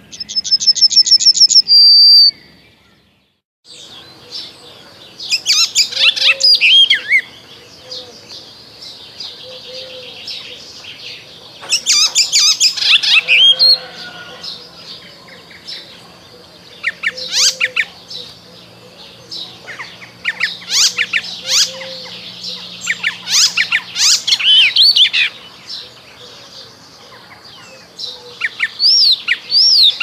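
A yellowhammer sings a fast run of repeated high notes that ends in a longer note, cut off about two seconds in. After a brief silence, an eastern olivaceous warbler sings in bouts of quick, varied, sweeping notes, repeated with short pauses through the rest.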